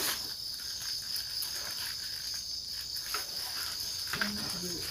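Steady, high-pitched chorus of night insects such as crickets, keeping up without a break.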